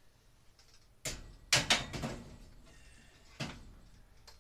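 A handful of sharp knocks and clunks from hand work at a garage ceiling: one about a second in, a loud quick pair just after it, and another single knock near the end.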